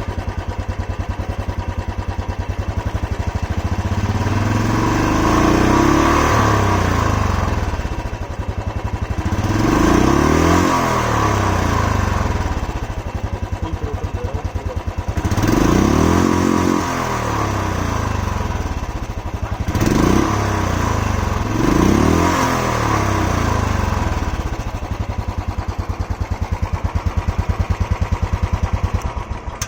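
Royal Enfield Classic 350 single-cylinder engine on its stock exhaust, idling with a steady thump and blipped about five times, the revs rising and falling back to idle each time.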